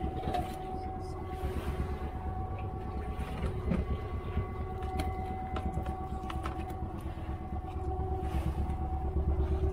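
A small fishing boat's engine running steadily, a low pulsing rumble with a steady hum over it, and a few light knocks and clicks from handling things aboard.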